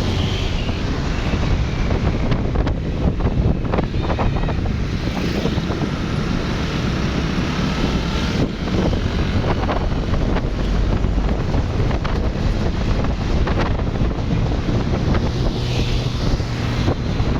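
Wind buffeting the microphone over the steady low running noise of a vehicle moving slowly through traffic.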